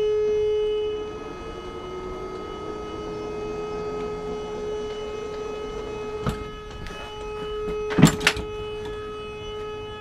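Electric hydraulic pump whining steadily as it raises a sailing yacht's hydraulic swim platform, louder for the first second and then settling to an even tone. A knock comes about six seconds in and a louder pair of knocks about eight seconds in.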